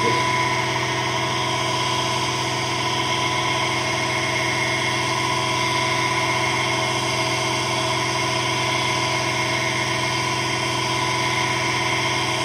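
Electric motor running steadily, spinning a wooden disc fitted with twelve magnets inside a copper-tube coil: an even hum with several steady tones.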